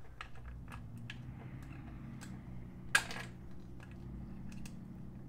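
Small plastic clicks and scrapes as banana plugs are pushed into the battery terminals of a cordless drill, with one louder click about three seconds in, over a faint steady hum.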